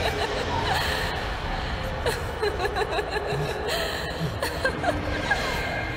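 A woman chuckling and laughing.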